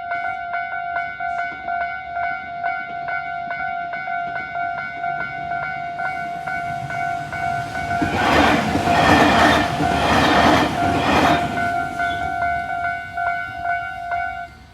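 Japanese level-crossing warning bells ringing in a fast, even rhythm, the bells on either side out of step, one side ringing faster. About eight seconds in, a Tobu Kiryu Line train passes for three or four seconds, its wheels clattering over rail joints, and near the end the bells stop suddenly.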